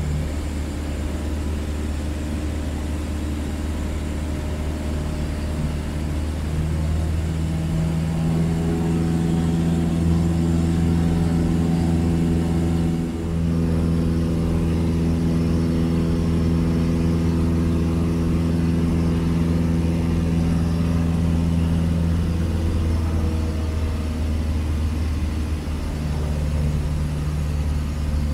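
Cessna 152's four-cylinder Lycoming engine and propeller running steadily in cruise, heard from inside the cabin. The engine note grows louder and fuller about eight seconds in, dips briefly just past the middle, and eases back a few seconds before the end.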